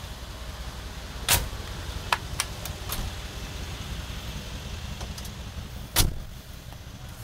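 Mercedes G63 AMG's twin-turbo V8 idling with a steady low hum while its heavy doors are worked: a loud door clunk about a second in, a few lighter latch and handle clicks, then another loud clunk near the end.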